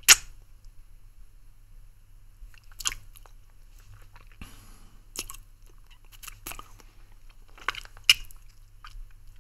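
Sucking on a lollipop close to the microphone: separate sharp wet mouth clicks and smacks every second or two, the loudest right at the start and another about eight seconds in.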